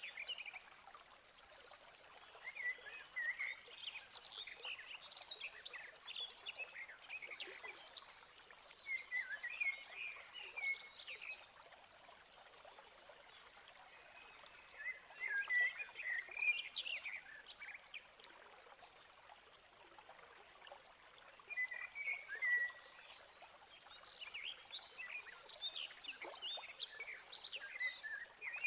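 Crackling and rustling from a great tit moving about in the dry nest material of its nest box as it settles over its eggs. The crackles come in short irregular bursts, several times, over a faint steady hiss.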